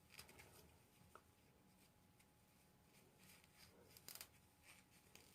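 Near silence, with a few faint, brief rustles and ticks of hands working hair with a crochet latch hook.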